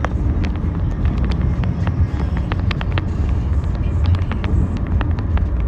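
Car cabin noise while driving: a steady low rumble of engine and tyres on the road, with frequent small clicks and rattles.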